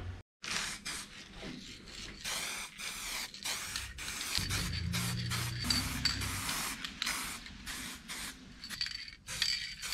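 Aerosol can of 1K primer spraying in many short hissing bursts, stopping and starting. The nozzle splatters rather than giving a light mist.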